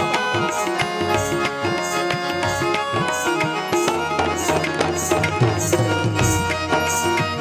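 Instrumental passage of a Gujarati garba: an electronic keyboard plays the melody over tabla strokes, with a high tick marking an even beat about every 0.6 seconds.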